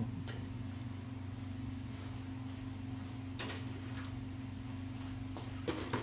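A steady low hum with a few faint clicks and rustles, a small cluster of them near the end.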